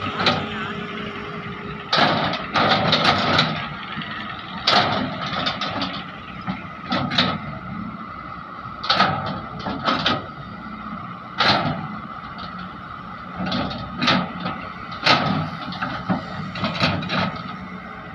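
A heavy diesel engine running steadily, with loud clanks and bangs every second or two, several in quick succession about two seconds in.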